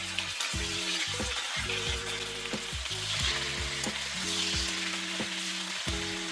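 Bone-in chicken thighs sizzling steadily in hot oil in a cast iron skillet as they brown, with scattered pops and crackles.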